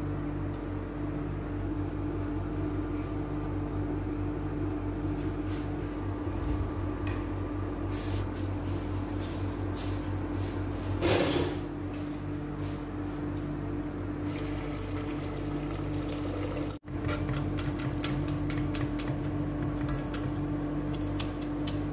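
A pot of chicken broth simmering on an electric glass-top cooktop, with liquid bubbling over a steady electric hum from the hob. About eleven seconds in comes one brief, louder rush of splashing water. After a short break near the end, light clicks sound over the same hum.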